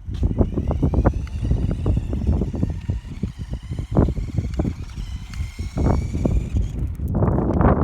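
Battery-powered RC car driving over dirt: its electric motor whines, rising and falling in pitch, over a constant clatter of irregular knocks and rattles from the wheels and chassis on rough ground. A rush of wind on the microphone comes near the end.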